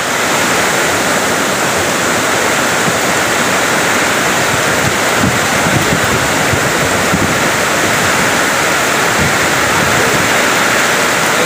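Cold lahar, a volcanic mudflow of water, ash and debris, rushing down a river channel: a loud, steady torrent noise without a break.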